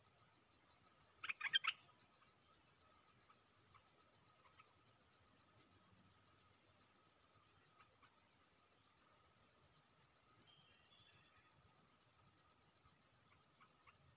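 A steady, rapid high insect trill runs throughout. A bulbul gives one brief call of a few quick notes about a second and a half in.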